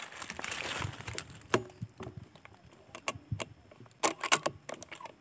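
Handling noise: a brief rustle, then a scatter of sharp little clicks and knocks, bunched together about four seconds in.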